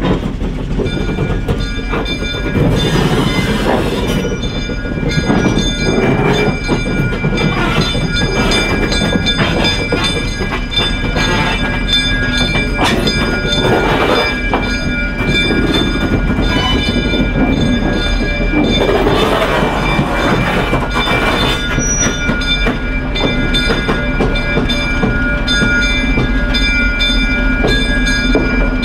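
Plymouth gasoline locomotive with a PRR cabin car rolling slowly past close by, the engine running and the wheels clattering on the track, with a steady metallic whine over the rumble.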